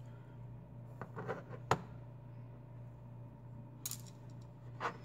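Small metallic clicks and ticks from a precision Torx screwdriver and a tiny knife body screw being backed out and handled. There are a few light ticks about a second in, one sharp click at about a second and a half, and two more near the end.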